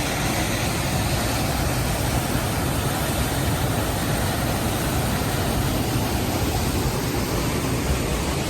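Small waterfall rushing: a loud, steady noise of falling water.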